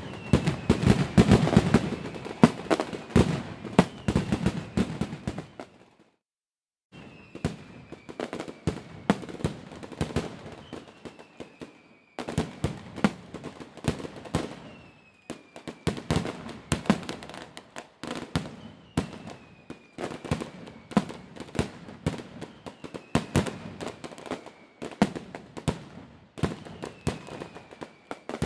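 Many fireworks and firecrackers going off at once, a dense, irregular run of sharp pops and bangs, with a short gap about six seconds in. A faint high whistle that falls in pitch comes back every few seconds.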